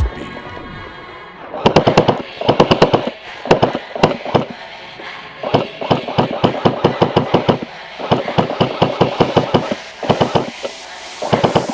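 Snow Wolf Steyr AUG electric airsoft gun firing several short full-auto bursts of rapid clacking shots with brief pauses between them. It runs on a 7.4 V LiPo battery, which makes it fire a little slower.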